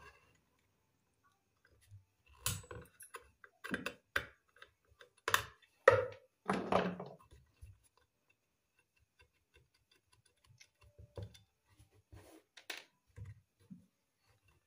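Scattered clicks, taps and knocks of an amplifier circuit board with aluminium heatsinks being handled. The louder knocks come in the first half, then only faint ticks.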